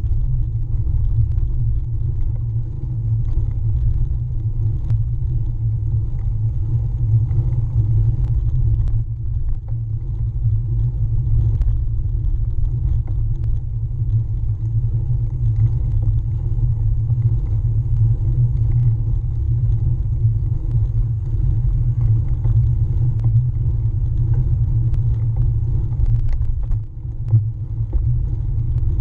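Steady low rumble of a road bike's rear tyre rolling over coarse, cracked tarmac, picked up by a camera mounted right beside the wheel. It dips briefly near the end.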